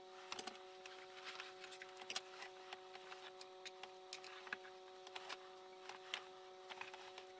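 Small scattered clicks, taps and rubs of a hot glue gun, ribbon and socks being handled on a tabletop, over a faint steady hum.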